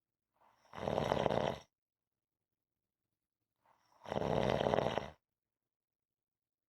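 A person snoring in a steady rhythm: two snores about three and a half seconds apart, each lasting about a second, with dead silence between them.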